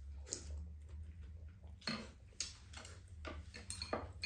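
A handful of irregular light clicks and knocks of chopsticks and a spoon against a frying pan and bowls during a meal, over a steady low hum.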